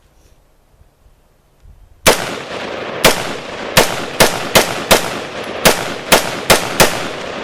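AR-15 rifle firing 5.56 rounds in quick semi-automatic succession: about ten shots, uneven in spacing, starting about two seconds in.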